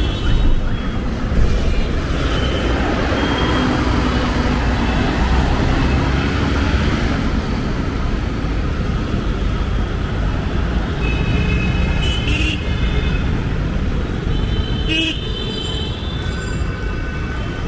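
Busy city road traffic: a steady rumble of engines and tyres, swelling as vehicles pass, with a few short, high horn beeps in the second half.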